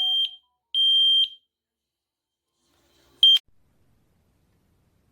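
PHYSEN WiFi photoelectric smoke detector sounding its high-pitched alarm: the tail of one beep, a second half-second beep shortly after, then about two seconds later a single short chirp.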